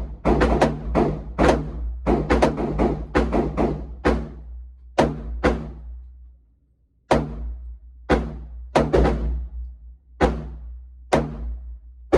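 Semi-automatic gunfire at a shooting range, with echoing shots. A quick string of shots, several a second, runs for about four seconds. After a short pause come single shots and a fast burst of three, over a steady low hum.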